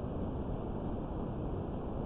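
High-pressure sewer jetting running: a steady, unbroken rushing noise.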